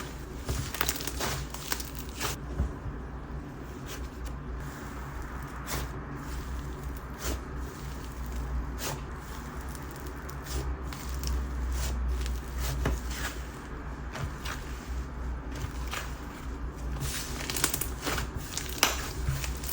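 Whipped slime with DIY clay mixed in, squished and stretched by hand, giving irregular small pops and crackles over a low steady hum.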